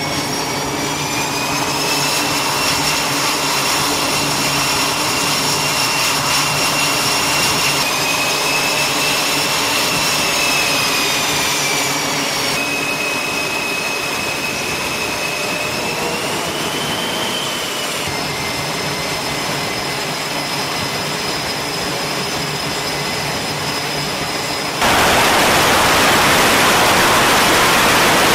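Military jet engines on an aircraft carrier flight deck running with a steady high whine, which shifts in pitch at each change of shot. About 25 seconds in it gives way abruptly to a louder, even rush of jet exhaust with no whine.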